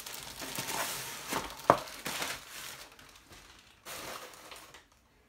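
Plastic packaging crinkling and rustling as a long cardboard kit box is pulled out and handled. There is one sharp knock about a second and a half in, and the rustling tails off in the second half with one brief burst near the end.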